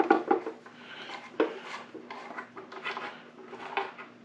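Irregular metal clicks and scrapes of a T-handle hex key working the 4 mm hex bolts out of a mini lathe's headstock cover.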